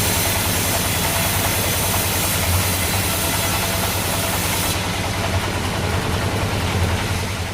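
Bandsaw sawmill running, a steady low hum under a hiss. The highest part of the hiss drops away about five seconds in, and the whole sound eases off near the end.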